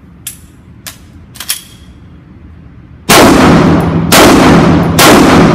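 Ported Glock 18C 9mm machine pistol fired three single shots on semi-automatic, about a second apart, each very loud shot ringing out in the reverberation of an indoor range. A few faint clicks come before the first shot.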